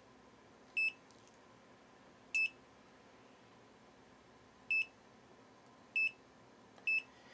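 Kaiweets pen multimeter beeping at each press of its function button, five short single-pitch beeps at uneven intervals as the meter steps through its modes.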